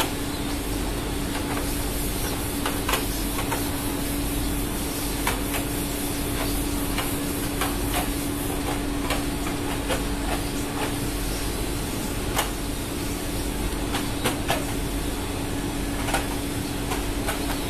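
Ship's machinery running steadily: an even noise with a constant hum, and irregular light clicks and knocks throughout.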